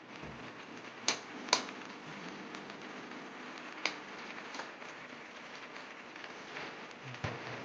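A cooking pot's faint steady simmering hiss, with a few sharp clicks: two about a second in, one about four seconds in and one near the end.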